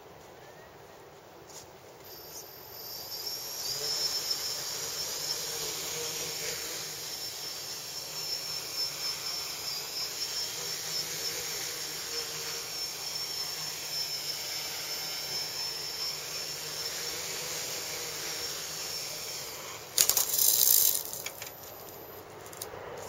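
Small tricopter's electric motors and propellers spinning up and running, a high whine that wavers with the throttle while it hovers low. About twenty seconds in, a loud burst of noise lasting about a second as it comes down, and the motors stop.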